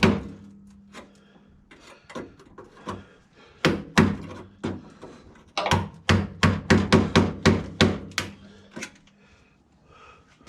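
Hammer tapping on spot-welded automotive sheet metal to knock a panel piece loose: a few scattered strikes, then a quick run of about a dozen blows at roughly four a second.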